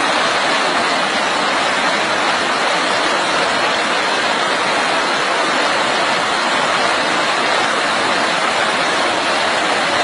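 A fast white-water torrent rushing and churning, loud and steady throughout.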